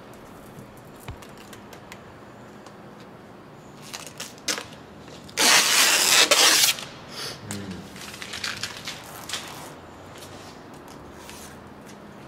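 Vinyl wrap film being worked by hand over a car roof: hands rubbing and smoothing the vinyl make soft crackles, and about halfway through the film gives a loud ripping crackle lasting over a second.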